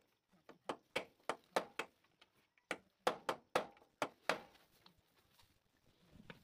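Hammer striking the top lock nut of a motorcycle's steering-head cone set to tighten it after the loose steering play has been taken up. About a dozen sharp metal knocks in two quick runs, stopping a little over four seconds in.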